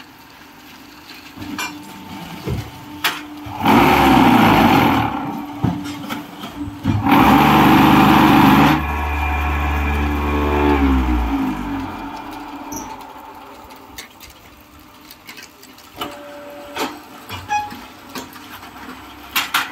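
Concrete block making machine's vibrators running in two loud bursts, the first about a second long and the second nearly two, as the concrete in the mould is compacted; the motors then wind down with a hum that falls in pitch. A few sharp clanks are scattered through the rest.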